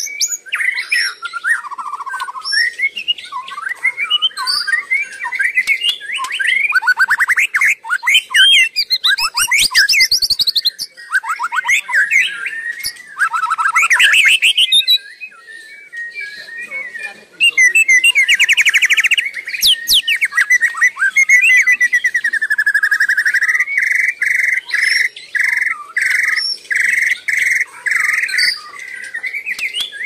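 White-rumped shama (murai batu) singing a long, varied song of whistles, glides and rapid trills. Near the end it repeats one note in an even series, about twice a second.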